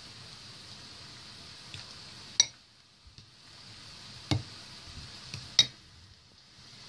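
Metal fork stirring raw chicken through a thick, wet marinade in a ceramic bowl, with three sharp clinks of the fork against the bowl, the first about two and a half seconds in and the others near four and a half and five and a half seconds.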